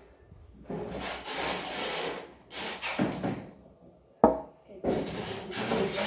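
Kitchen handling noises: rubbing and scraping in several bursts of about a second each, as things are moved on the counter and a plastic wall cabinet is opened, with one sharp click a little past four seconds in.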